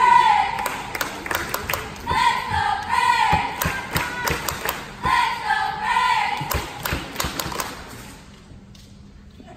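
Cheerleading squad shouting a cheer in unison: three chanted phrases about three seconds apart, with sharp claps and thumps between them. It dies away near the end.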